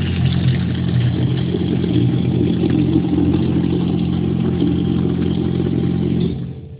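Milk vending machine dispensing milk into a bottle: its pump motor runs with a steady hum for a timed 7-second, 4-pulse dispense, and cuts off near the end.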